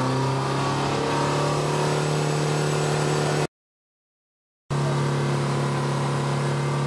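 BMW car's exhaust at the tailpipe, engine held at steady revs for a static exhaust noise test, with a phone meter reading in the 80s of dB(A), under the 98 dBA limit at half a metre. The sound cuts off sharply about three and a half seconds in and comes back about a second later, unchanged.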